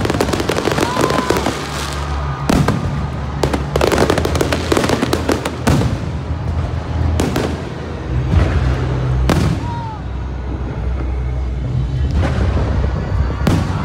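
Aerial fireworks shells bursting overhead: repeated sharp bangs throughout, coming thick and fast with crackling about four to six seconds in.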